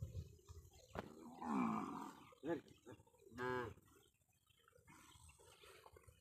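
Cattle mooing in a herd: a longer moo about a second and a half in, followed by two short calls around two and a half and three and a half seconds.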